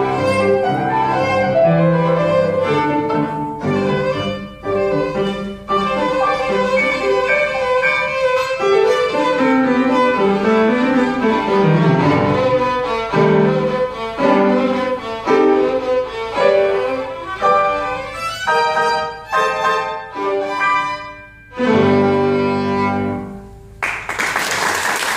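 Violin played with piano accompaniment in a lively piece. Near the end the music breaks into a few short, separated chords, and about a second before the end it gives way to applause.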